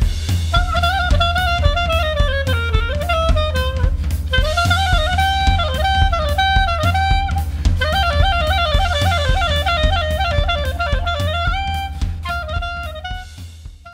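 Background music: a lead melody over a steady drum beat and bass, fading out near the end.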